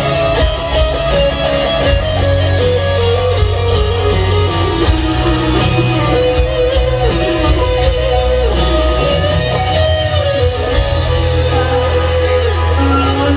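Rock band playing live in a stadium, an electric guitar solo carrying a slow, bending lead melody over bass and steady drums. Heard loud through the PA from far back in the stands.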